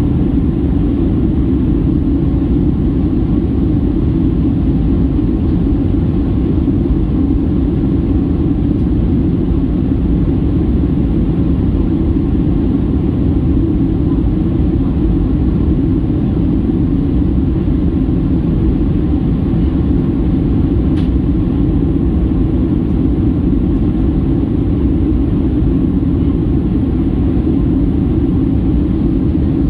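Steady, low cabin drone of a Boeing 737-800 in descent: the CFM56-7B turbofans and the airflow over the fuselage making an even rumble.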